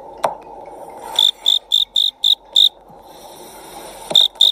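Knife blade cutting down through a block of kinetic sand, a steady soft crunching hiss with a sharp click near the start. Two runs of short, high chirps cut through it, about three or four a second, the loudest sounds here.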